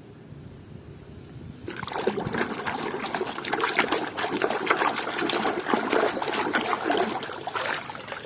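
Running water splashing over a muddy plastic toy as it is rinsed clean, with lots of small splashes. It starts suddenly about two seconds in.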